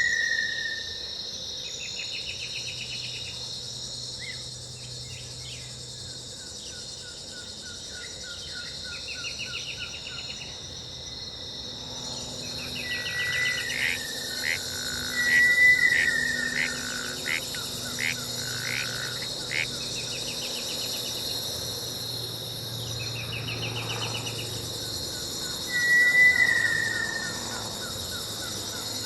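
Recorded jungle ambience of insects and strange animal calls: a steady shrill insect chorus with pulsed insect trills recurring every few seconds. About three times a short falling whistled call rises above it as the loudest sound, each followed by a quick ticking trill, and a cluster of short chirps comes through the middle.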